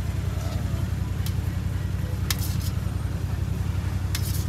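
Handheld butane blowtorch burning with a steady low rumble, with a few light clicks of metal tongs against steel trays.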